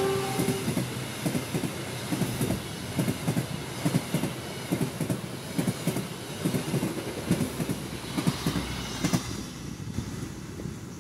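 Passenger coaches of a diesel-hauled train passing close by, their wheels clacking over the rail joints in a fast, uneven rhythm that grows fainter as the train draws away. The last note of the train's horn dies out just after the start.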